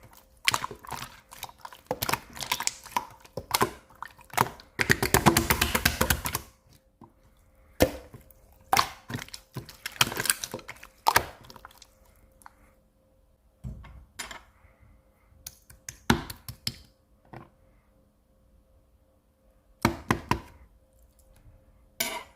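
Clear slime being pressed, folded and stretched by hand, giving wet clicks, pops and crackles in irregular bursts, with a dense run of crackling about five seconds in.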